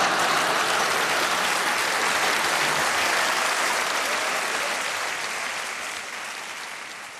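Studio audience applauding, a dense steady clapping that dies away over the last couple of seconds.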